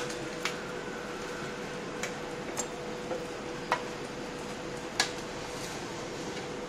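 Metal tongs clicking sharply against a steel frying pan and tray as fried buns are lifted out, about six clicks, the loudest two near the middle and about two-thirds through. Underneath runs a steady hiss with a faint hum.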